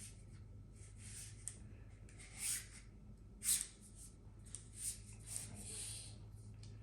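Travel tripod being handled: soft rubbing and a few short scrapes and swishes, the loudest about three and a half seconds in.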